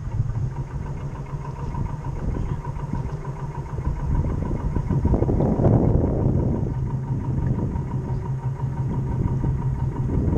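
Radio-controlled model boat's drive motor running steadily with a low hum and a thin steady whine, growing louder about five seconds in as the boat gets under way.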